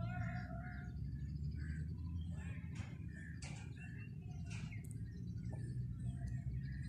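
Birds chirping and calling at intervals, a few sharp chirps among softer calls, over a steady low rumble.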